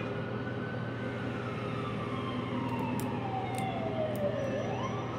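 A siren wailing: its tone falls slowly for about three and a half seconds, then sweeps quickly back up near the end, over a steady low hum.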